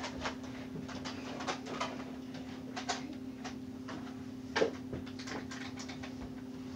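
Faint scattered knocks and rustles of someone shifting about inside a wooden cabinet, with one louder knock about four and a half seconds in, over a steady low hum.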